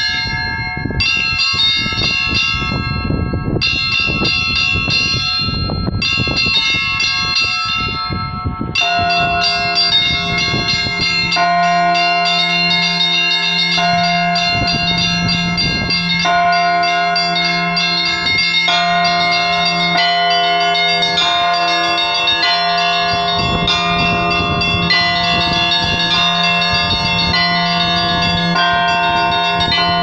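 Russian Orthodox church bells rung by one ringer from ropes tied to the clappers: a rapid pattern on the small high bells, and about nine seconds in the larger bells join, their low hum sounding on beneath the chime.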